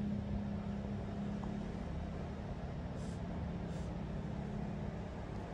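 A steady low mechanical hum over a low rumble, its tone weakening about two seconds in, with two faint soft hisses near the middle.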